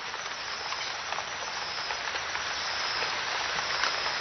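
Steady rain falling, with scattered separate drop hits, slowly getting a little louder.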